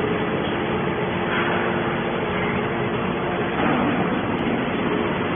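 Horizontal hydraulic metal baler running with a steady, dense machine noise.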